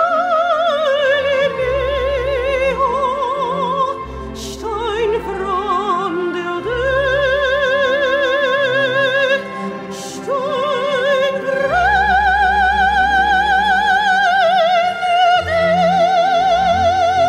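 A woman singing in a classical, operatic style over a musical backing, with long held notes and a wide, even vibrato. The phrases climb, and the last six seconds hold a long, high sustained note.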